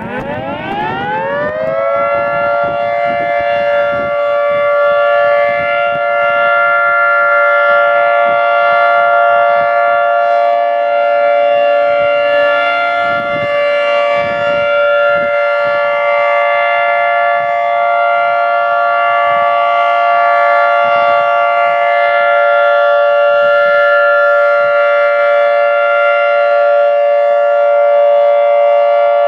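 Federal Signal 3T22 electromechanical warning siren spinning up on test. Its chord of several tones rises in pitch over about two seconds, then holds a loud, steady tone.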